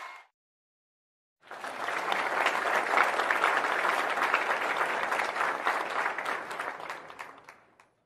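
Crowd applauding. A dense round of clapping starts after about a second and a half of silence, holds steady, then thins to a few scattered claps and fades out near the end.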